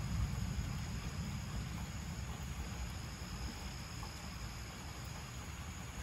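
Distant thunder rumbling low and dying away over steady rain hiss, with a faint, steady high trill of night insects underneath.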